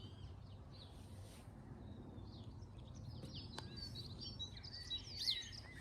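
Faint birdsong: many short high chirps and warbled notes from small birds, busiest in the second half, over a low steady rumble of outdoor noise.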